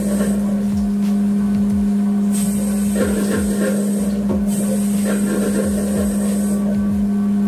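Steady machine hum with a constant low tone, and a rasping noise that swells and fades every few seconds.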